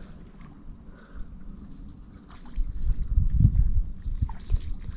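Insects chirring in one steady, unbroken high-pitched trill, under low rumbling noise on the microphone that swells about three and a half seconds in.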